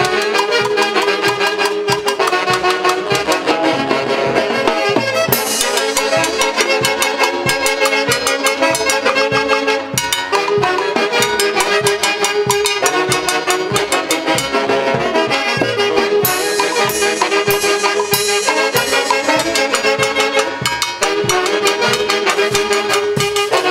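Peruvian orquesta típica playing a huaylarsh: a saxophone section carrying the melody together, with violin and harp, over a steady beat of drum and cymbal struck with sticks.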